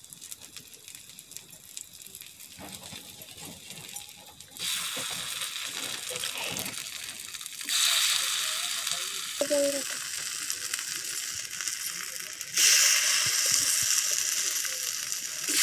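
Fritters of bitter greens and rice paste sizzling as they fry on a flat pan over a wood-fired clay stove. The sizzle is faint at first, then grows louder in steps about four and a half, eight and twelve and a half seconds in.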